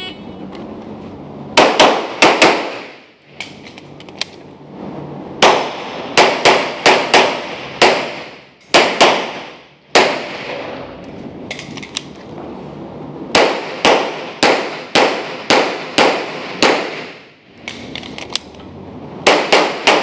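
An electronic shot-timer beep, then strings of rapid pistol shots from a Glock 34 9mm. The shots come three to six at a time, a few tenths of a second apart, with short pauses between strings. Each shot rings off the walls of the indoor range.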